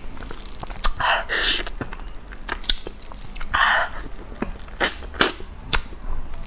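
Close-miked mouth sounds of eating soft durian flesh: wet smacking and sharp lip and tongue clicks, with two short breathy rushes about a second in and again between three and four seconds.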